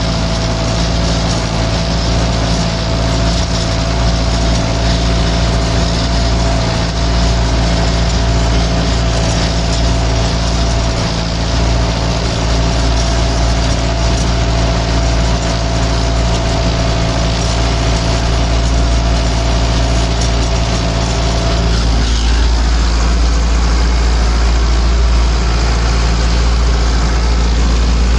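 Massey Ferguson 590's four-cylinder Perkins diesel running steadily under load, pulling a three-furrow plough. About three quarters of the way through, a steady whine stops and the engine note changes.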